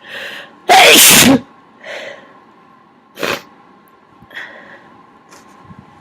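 A person sneezing once, very loud, after a short breath in, then a few short, fainter breaths or sniffs. They have a head cold.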